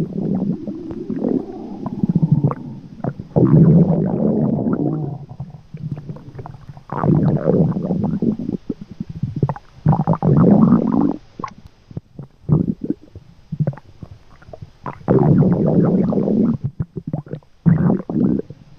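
Stomach gurgle and growl sound effects: a string of bubbly, rumbling bursts, each lasting one to a few seconds with short pauses between them.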